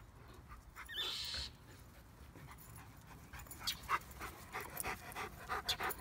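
Labrador retriever panting quickly, close by, from about halfway through, after running. About a second in there is one brief harsh hiss.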